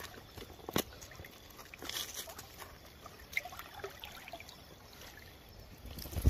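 Faint trickling water with a few sharp clicks, the loudest just before a second in.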